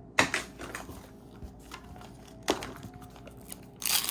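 Hard plastic clacks from a Mini Brands surprise capsule being handled and opened: two sharp knocks about two seconds apart, then a short burst of crinkling plastic near the end.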